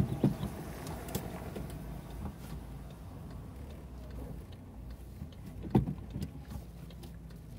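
Car engine running low and steady, heard from inside the cabin as the car creeps along a cobblestone street. Two sharp knocks, one at the start and one about two-thirds of the way through, with a few faint ticks.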